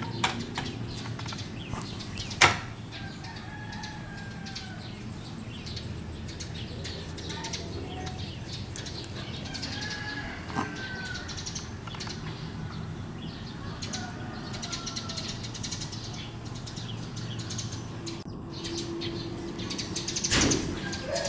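Outdoor bird ambience: scattered short bird calls and chirps over a steady low hum, with light clicks from the phone being handled. There is a sharp click a couple of seconds in and a louder rustling knock near the end.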